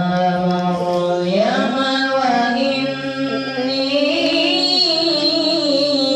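A man's voice chanting an Islamic prayer recitation into a microphone, holding long, drawn-out notes that glide slowly up and down in pitch.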